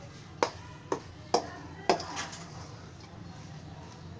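Metal spoon knocking against a stainless-steel mixing bowl while stirring chicken mince: four sharp clinks about half a second apart, the last two ringing briefly, then only a low steady hum.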